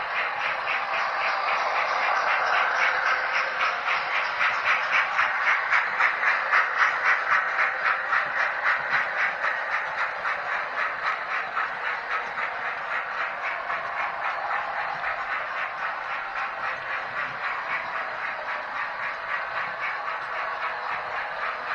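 Model railway trains running round the layout: wheels clicking quickly and evenly over the rail joints, a steady clatter that grows louder as a goods train passes close by, peaking about six or seven seconds in, then easing off.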